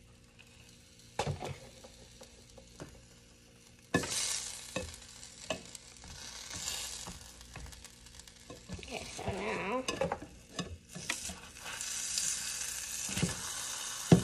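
Quesadilla frying in a skillet: a sizzle starts suddenly about four seconds in and grows louder toward the end. A few knocks of a spatula against the pan come near the end.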